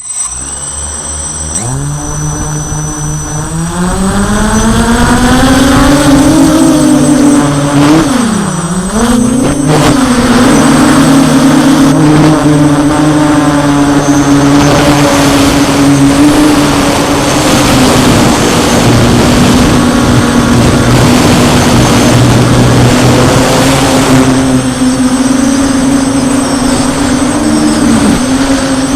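The six electric motors and propellers of a DJI F550 hexacopter spool up, their pitch rising over the first few seconds as it lifts off. About eight seconds in the pitch drops briefly and recovers, then the rotors hold a steady, loud buzz in flight.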